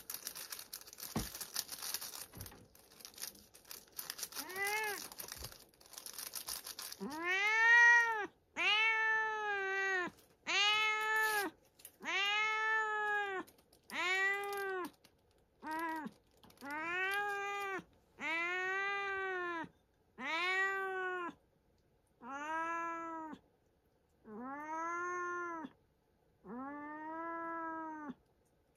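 Cat meowing over and over: about a dozen long meows, each rising and falling in pitch, a second or two apart. Before them come several seconds of rustling and shuffling.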